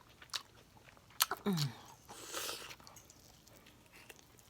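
Mouth sounds of eating: chewing and sharp wet clicks, with a short voiced sound that falls in pitch about a second and a half in and a breathy noise a moment later.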